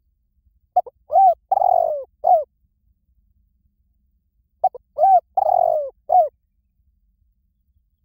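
Spotted dove cooing: two identical phrases about four seconds apart, each a short clipped note followed by three coos, the third the longest.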